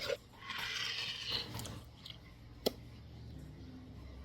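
A spoon stirring Elmer's glue and slime activator in a bowl, a soft wet squishing that fades after about a second and a half, with one sharp click a little before three seconds in.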